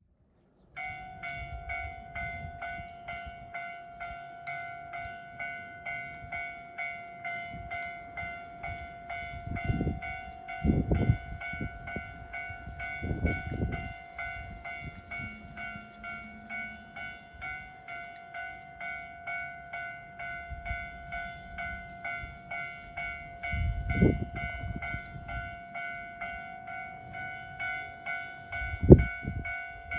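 Railway level-crossing warning bell ringing steadily, an even electronic ding repeated about two to three times a second: the crossing is closed for an approaching train. A few short low rumbles break in over it, the loudest near the end.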